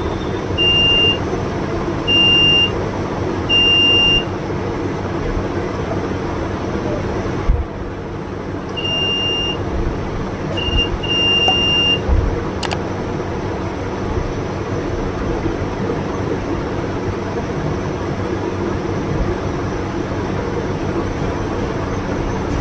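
An analogue multimeter's continuity buzzer gives high, steady beeps of about half a second each as the test probes touch a Delphi common-rail diesel injector's terminals during a short check. There are three beeps at first and three more about nine seconds in, over a steady background hum.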